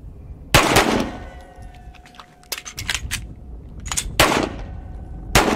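Pistol shots from two shooters firing side by side: a close pair about half a second in, another close pair around four seconds in, and one more shot near the end. Between them come small metallic clicks of empty-gun magazine reloads.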